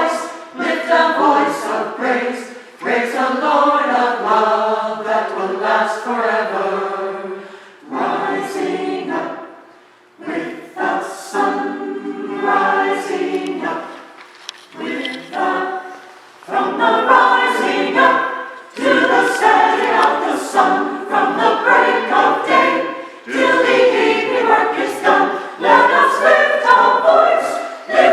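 Community choir singing together in sung phrases, with a few short breaks between phrases.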